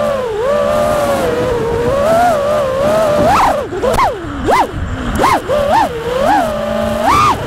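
A 5-inch FPV quadcopter's motors and propellers whining, heard from the onboard camera. The hum holds fairly steady for about three seconds. Then come a string of quick throttle punches, with the pitch leaping up and falling back several times.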